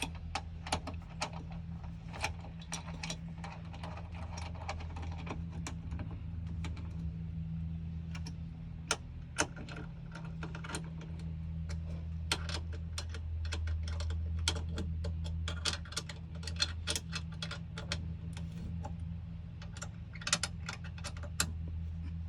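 Ratchet wrench clicking in short, irregular runs as the shift box mounting bolts are tightened down, over a steady low hum.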